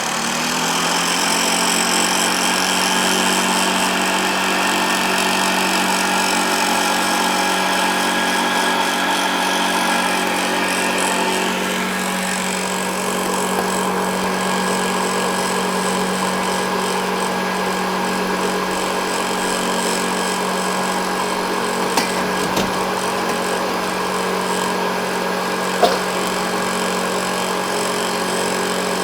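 1968 Hoover Convertible Model 711 upright vacuum cleaner running: the motor comes up to speed in the first second, then runs with a steady hum and whine, with two brief knocks in the second half. The owner notes a slight agitator scraping on this machine that needs work.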